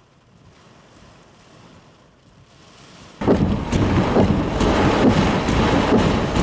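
Faint rain hiss, then about three seconds in a sudden change to loud storm wind and heavy blowing rain buffeting the microphone, with many small crackles from the rain.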